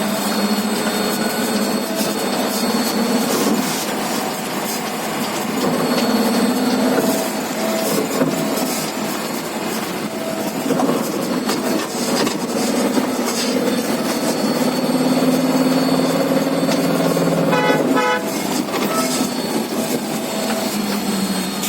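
Electric bus running, with several whining tones that come and go and shift in pitch: the noise the uploader puts down to a critical universal shaft problem. A short, sharp pitched tone sounds near the end.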